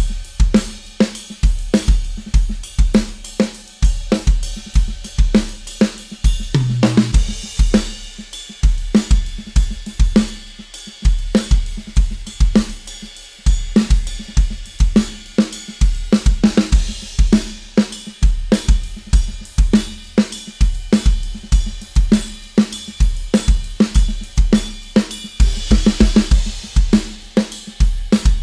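Drum kit played continuously in a fast, busy beat: heavy kick drum hits, snare and hi-hat, with cymbal crashes.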